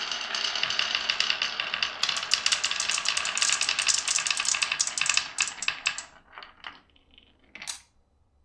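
Many glass marbles clattering down a wooden marble run in a dense stream of rapid clicks. The clicks thin out over the last few seconds as the last marbles finish, with a final louder clack near the end.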